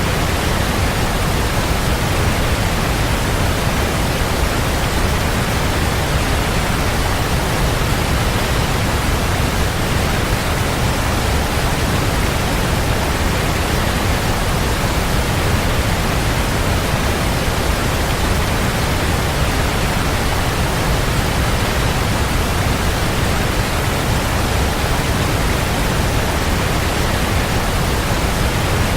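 Waterfall: a steady, even rush of falling water with a deep low rumble, unchanging throughout.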